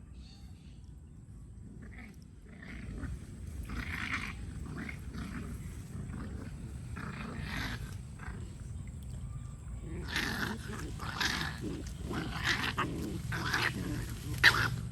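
Otter sounds: a series of harsh, noisy bursts, sparse at first and coming close together in the second half.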